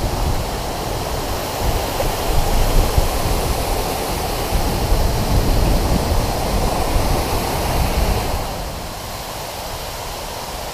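Steady rushing water of a waterfall, a dense continuous noise that eases a little about eight and a half seconds in.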